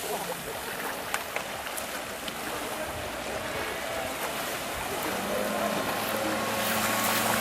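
Wind and sea water rushing, with a motorboat engine's steady hum coming in about five seconds in and growing a little louder.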